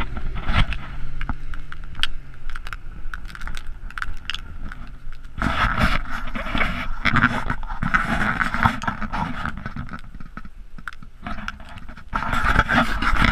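Gusty wind buffeting an action camera's housing, with scattered knocks and scraping from the camera being handled. The rush of wind builds about five seconds in, eases briefly, and returns near the end.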